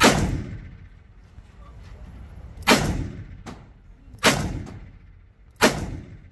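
.357 Magnum revolver fired four times, sharp loud shots about one and a half seconds apart, with a fainter crack between the second and third.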